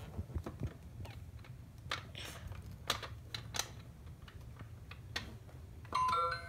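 Scattered light plastic clicks and knocks as the buttons and body of an Our Generation Sweet Stop toy ice cream truck are pressed and handled. Near the end, the truck's built-in electronic jingle starts, a tinkly beeping tune.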